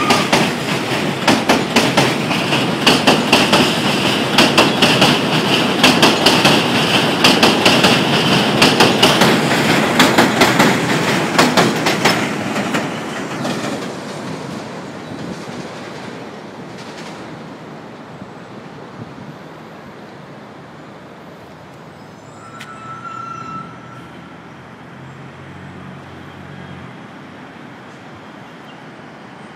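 R62A subway train passing close by on an elevated track, its wheels clicking rapidly over the rail joints with a high wheel squeal, then fading away as it pulls off about thirteen seconds in. A short, faint high squeal sounds in the distance near the end.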